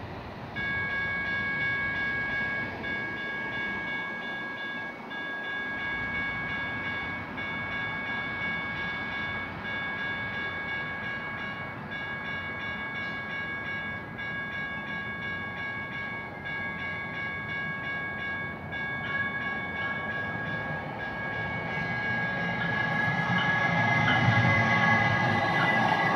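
Grade-crossing warning bell at a light-rail crossing sounding without pause in a steady repeating pattern. Over the last few seconds a METRO Green Line light-rail train approaching adds running noise that grows louder.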